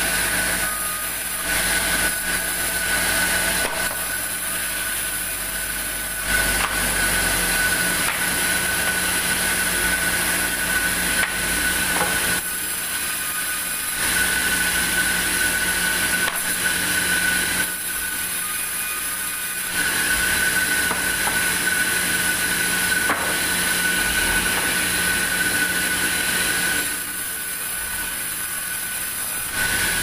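Large sawmill band saw running with a steady high whine while a log is fed through it. The noise swells through several cuts of a few seconds each and drops back to the idling blade between passes.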